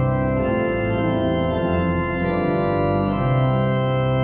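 Compton pipe organ's extended third diapason rank drawn at 16, 8, 4 and 2 foot together, playing a short passage of held chords that change every second or so. The four pitches from the one rank merge into a very blended sound.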